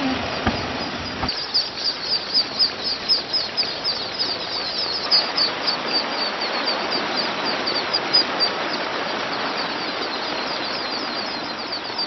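A large flock of ducklings peeping, many short high chirps overlapping several times a second, over a steady hiss of the crowded flock. The peeping starts about a second in.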